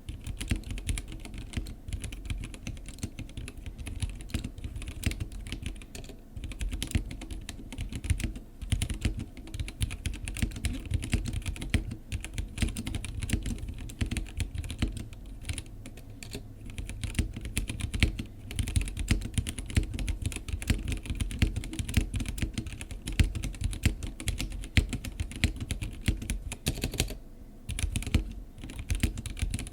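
Steady, fast typing on a Womier K87 acrylic-cased mechanical keyboard fitted with unlubed Gateron Red linear switches and stock keycaps, dense clacking keystrokes with a short pause near the end.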